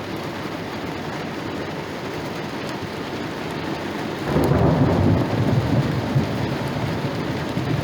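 Steady rain hiss, then about four seconds in a loud rumble of thunder rolls in and keeps rumbling.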